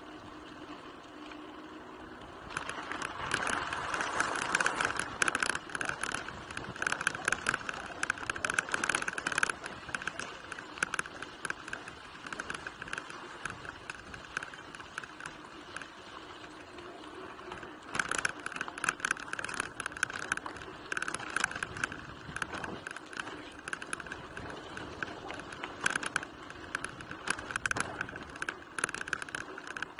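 Mountain bike rolling over a rough dirt and gravel trail: tyres crunching and the bike rattling over bumps. The rattling starts about two seconds in, eases for a while in the middle and picks up again later.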